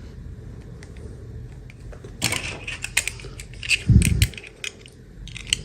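Toy packaging and small plastic pieces being handled: a run of clicks, rattles and crinkles starting about two seconds in, with one dull thump near the middle.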